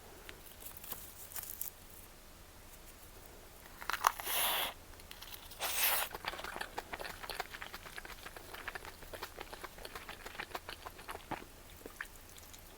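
Food packaging being handled: light clicks and crinkling, with two short tearing rips about four and six seconds in.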